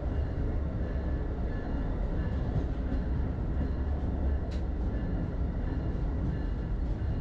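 Steady low rumble of an Amtrak Northeast Regional passenger train heard from inside the train, with a faint click about four and a half seconds in.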